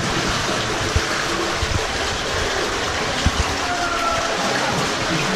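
Water flowing through a narrow rock tunnel, a steady rushing, with a few dull knocks from people walking through it.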